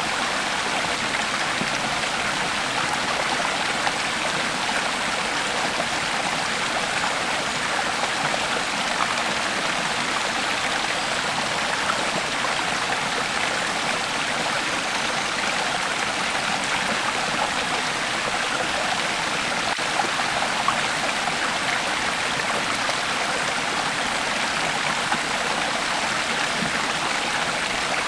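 Creek water flowing steadily over rocks, an even rushing with fine splashing and trickling.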